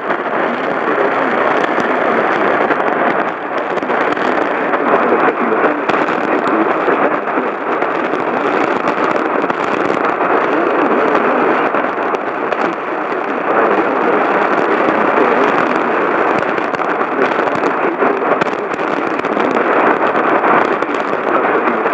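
Steady static hiss from a radio receiver, an even rushing noise with no tones or words.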